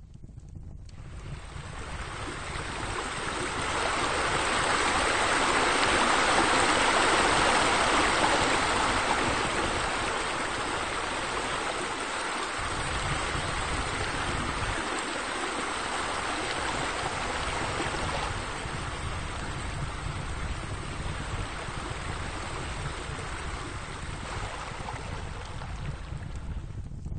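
Running water with a steady, even hiss, fading in over the first few seconds and then holding steady.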